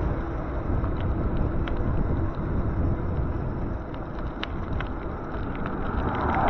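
Steady wind rushing over the microphone of a moving e-bike, mixed with road and traffic noise, with a few faint light ticks.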